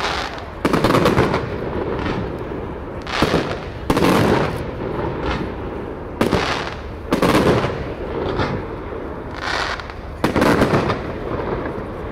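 Fireworks display: a string of about eight loud shell bursts at irregular intervals, each bang fading out in a rumbling tail.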